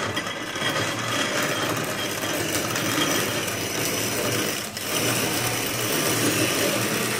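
No. 500 manual coffee grinder grinding coffee beans as its crank is turned: a steady, continuous grinding noise, with a brief lull about two-thirds of the way through.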